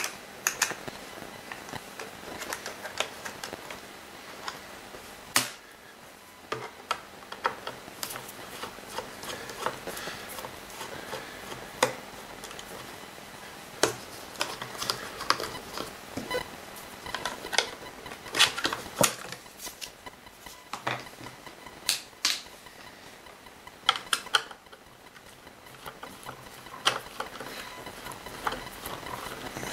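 Screwdriver backing out screws from a Kirby G4 vacuum's plastic housing, with irregular small clicks and knocks as the plastic parts are handled.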